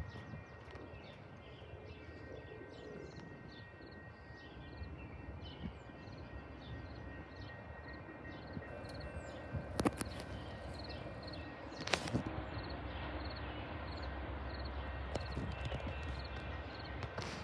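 Outdoor ambience beside railway tracks: a steady low hum of distant traffic that grows louder toward the end, with small birds chirping. There are two sharp knocks about ten and twelve seconds in, and after the second one a regular high ticking of about two beats a second.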